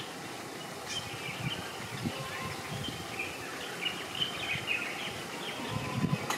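Small birds chirping and twittering over a faint, uneven low rumble.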